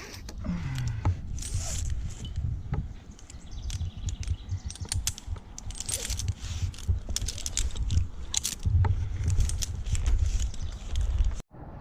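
Climbing and rigging hardware being handled in the tree while a limb is roped off: many light metallic clicks and clinks over a low, uneven rumble. The sound cuts out briefly near the end.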